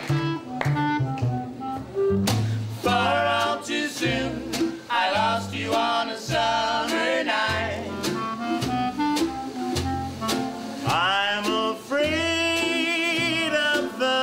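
Small acoustic swing band playing: upright bass walking under a snare drum's steady strokes and a strummed ukulele, with a wavering clarinet melody on top that slides up about eleven seconds in.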